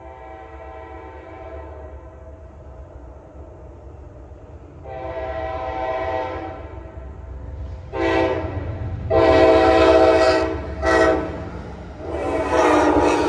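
Amtrak GE P42DC diesel locomotive's air horn blowing a series of long and short blasts for a grade crossing, getting louder as the train approaches. A steady low rumble of the oncoming train runs underneath.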